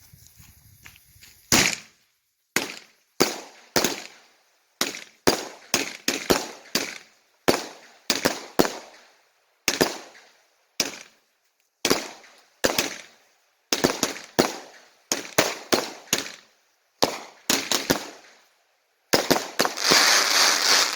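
Black Cat Stonewall 200-gram, 20-shot consumer firework cake firing. About two seconds in, sharp shots begin, one or two a second. In the last two seconds they run together into a dense, rapid finale.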